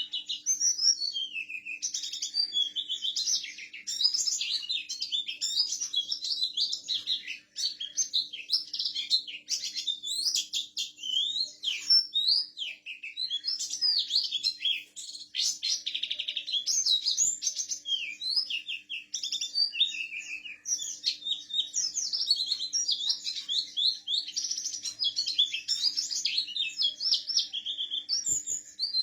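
Pet white-eye (pleci buxtoni) singing a long, unbroken rolling song of rapid, varied high chirps and trills: the continuous "ngerol" style that keepers prize.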